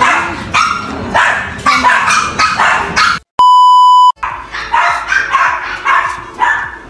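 A dog barking repeatedly, about twice a second. About halfway through, the barking is cut by a loud, steady, high test-tone beep lasting under a second, the sound of a TV colour-bars test card.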